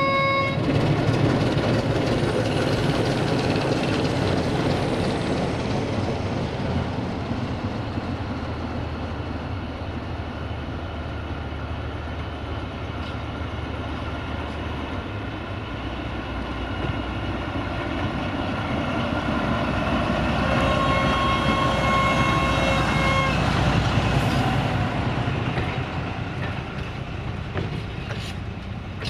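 A diesel-hydraulic LDH450 shunting locomotive hauling tank wagons draws near and passes, its engine running louder as it comes close. A locomotive horn sounds briefly at the very start and again for about three seconds a little past two-thirds of the way through. The tank wagons then roll past on the rails.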